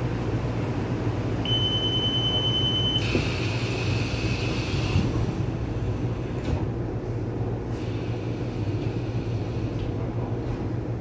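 Interior running sound of a Taiwan Railway commuter electric multiple unit heard inside the car by a door: a steady low rumble of wheels on rail. A short high steady tone sounds about a second and a half in, and a higher whine comes and goes twice after that.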